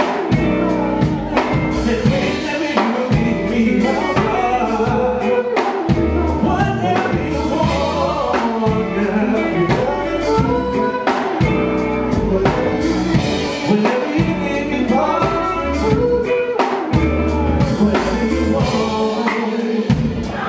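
Live band playing: male vocalist singing into a microphone over a drum kit keeping a steady beat and an electric guitar.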